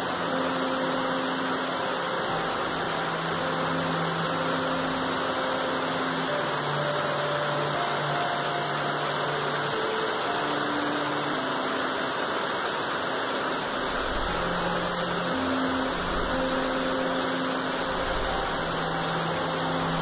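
Steady heavy rain falling on tree foliage: a continuous, even hiss. Faint low tones underneath shift in pitch every second or two.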